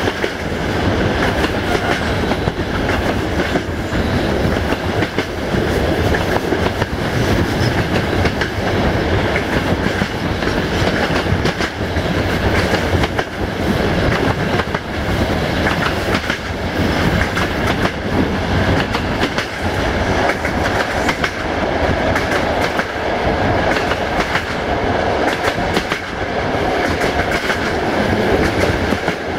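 Passenger train coaches rolling along the track at speed: a steady rumble with the clickety-clack of the wheels over rail joints, heard from an open coach window.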